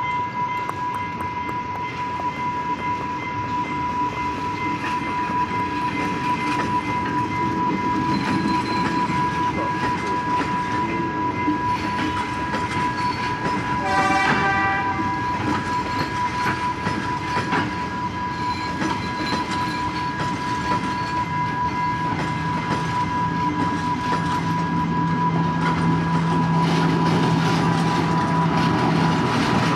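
Diesel passenger train rolling over a level crossing: wheels clattering over the rail joints, under a steady high tone from the crossing's warning signal. A short horn blast sounds about halfway through. Near the end the deep, steady drone of the diesel power car grows louder as it passes.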